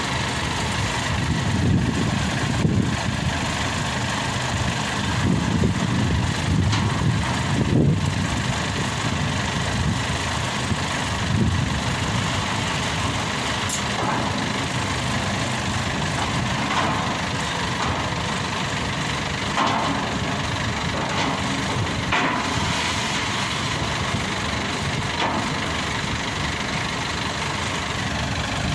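Maxxi Bimo 102 combine harvester's engine running steadily, with louder low surges in the first eight seconds or so, then settling to an even idle.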